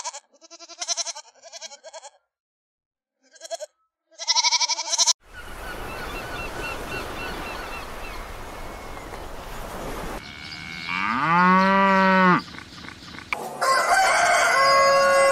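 Sheep bleating in short, quavering calls, in two bouts with a pause of about a second between them. After a few seconds of hiss with faint chirps, a loud, long animal call rises and then holds, and a cluster of other animal calls follows near the end.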